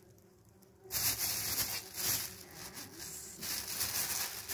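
Scratchy rubbing noise that comes in about a second in and continues unevenly, with a short dip about three and a half seconds in.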